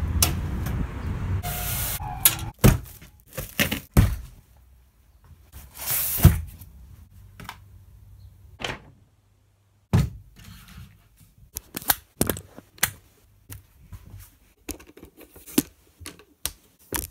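A steady low rumble for about the first two seconds, then a string of separate clicks, knocks and thunks with quiet gaps between them, as a Manfrotto Compact Action tripod is handled and its plastic leg flip-locks are worked.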